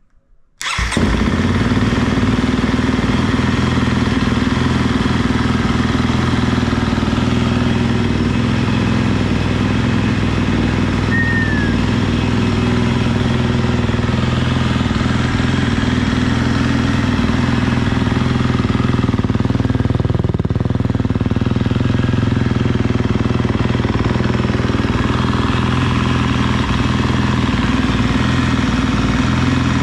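Husqvarna 250 motocross bike's engine starting about a second in and then idling steadily through a freshly repacked FMF exhaust fitted with its sound insert.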